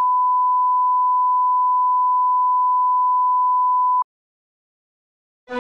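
Steady 1 kHz line-up test tone of a colour-bar test signal, cutting off suddenly about four seconds in and followed by dead silence. Music starts at the very end.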